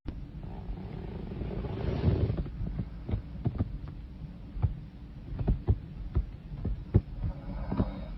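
A woman snoring: a breathy intake of breath about two seconds in, then a slow, uneven rattle in the throat, short low clicks about three a second.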